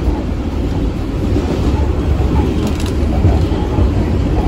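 Kawasaki R142A New York subway car giving a steady, loud low rumble.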